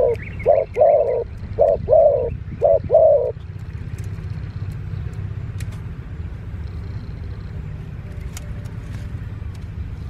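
Spotted dove cooing in short repeated phrases of deep notes, stopping about three seconds in, over a steady low hum.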